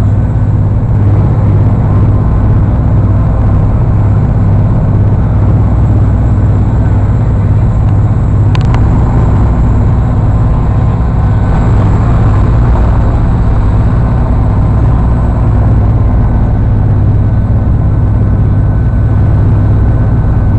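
A passenger ferry's engines running steadily under way: a loud, constant low drone with a steady hum, over the wash of water and wind, with one short click about eight and a half seconds in.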